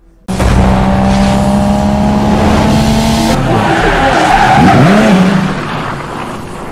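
Intro sound effect of a car being driven hard: an engine running at high revs with tyres skidding and squealing as it drifts. It starts suddenly, its pitch rises and falls about five seconds in, and then it fades away.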